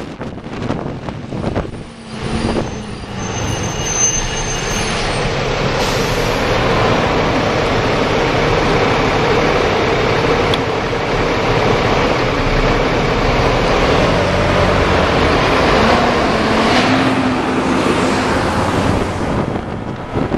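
Road traffic noise in slow city traffic, dominated by the steady engine of a double-decker bus running close alongside. It gets louder about three seconds in and stays loud and even.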